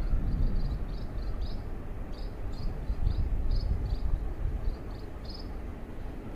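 Low, uneven rumble of wind on the microphone under a string of short, high chirping calls repeating about two or three times a second.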